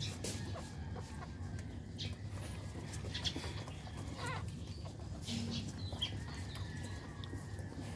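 Newborn Shih Tzu puppies nursing, giving a few brief high squeaks and one short wavering whimper about halfway through, over a steady low hum.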